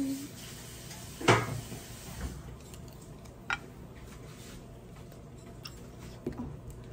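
Wooden chopsticks and tableware knocking on a ceramic plate: a louder knock about a second in, then a sharp click a couple of seconds later as the chopsticks are laid down on the plate, with a few soft knocks after.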